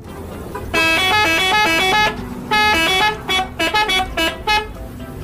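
A small school bus's musical horn plays a quick tune of short stepped notes, with a brief pause in the middle, over low engine noise from the bus.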